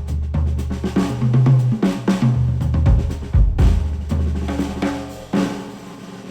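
Instrumental music with a drum kit (kick, snare and hi-hat hits) over a bass line, played back through HIFIMAN Edition XV open-back headphones and picked up by microphones at the earcups. It thins out and gets quieter near the end.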